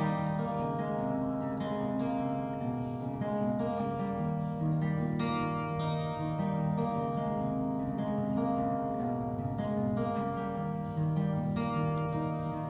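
Solo acoustic guitar: chords strummed every second or two and left to ring, with picked notes between, as an instrumental intro.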